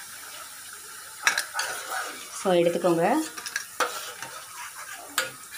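Sweet potato sticks deep-frying in hot oil in a steel kadai, sizzling steadily, while a metal ladle stirs them and clinks against the pan several times.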